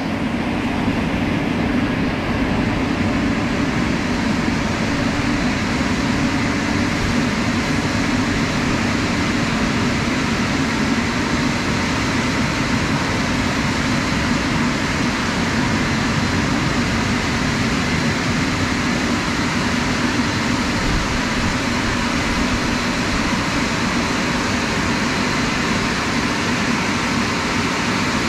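Drying blowers of a Christ Cadis C17 rollover car wash, blowing air in a loud, steady rush with a low hum and no let-up.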